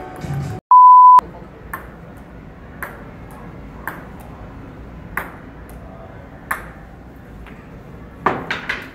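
A loud, pure, steady beep lasting about half a second, dropped in with a moment of dead silence before it, like an edited-in censor bleep. After it comes a low steady background with a sharp tick about every second, and a quick run of ticks near the end.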